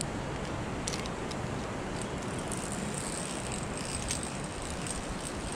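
Wind rumbling on the microphone, with a few faint clicks and a thin high hiss in the middle.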